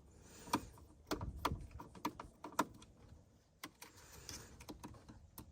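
Irregular light clicks and taps of small plastic and metal parts being handled while the turn signal switch assembly is taken off the steering column again.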